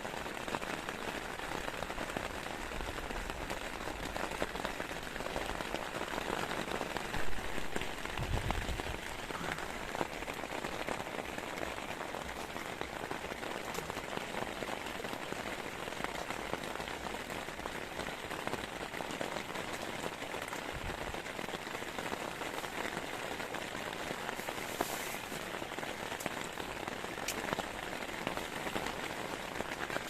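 Heavy rain falling steadily, with a brief low thump about seven to eight seconds in.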